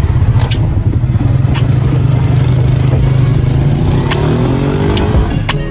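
Small motorcycle engine running as the motorcycle taxi rides off, its pitch rising about four seconds in as it speeds up.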